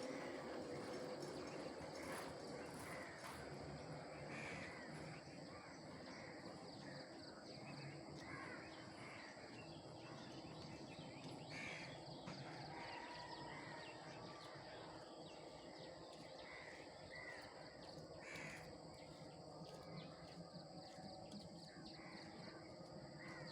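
Faint birds giving short calls at irregular intervals, over a steady background hiss.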